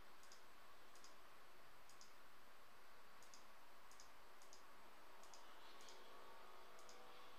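Computer mouse button clicks, faint and irregular. About ten press-and-release double clicks spread over several seconds, over a steady background hiss.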